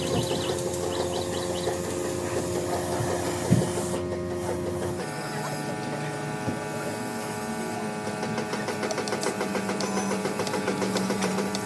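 Whirring of small motor-driven workshop tools, steady with a fast rhythmic chatter, switching abruptly to a different whirring about five seconds in.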